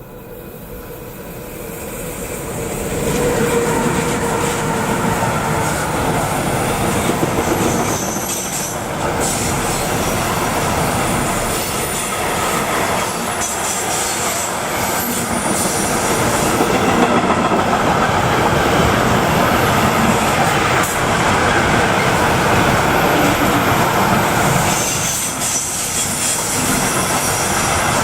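Freight train rolling past close by, the sound swelling over the first few seconds and then staying loud and steady as the wagons go by, with high-pitched wheel squeal and clatter over the rail joints.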